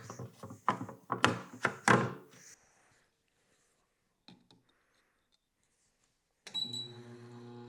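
A quick run of sharp thunks and knocks in the first two seconds or so, then a quiet gap with one faint click, then music with steady held tones comes in near the end.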